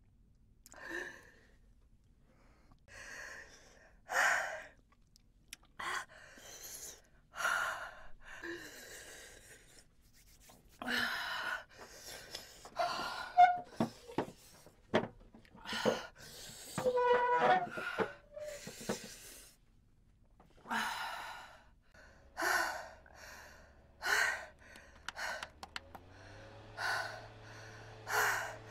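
A woman's sharp gasping and hissing breaths, one every second or two, as she suffers the burn of an extremely hot chili chip. Near the end a small handheld electric fan starts up with a low hum that rises in pitch and then holds steady.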